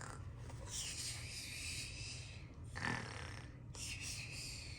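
A child imitating a bear's snoring: two long, breathy snores with a short, sharper sound between them.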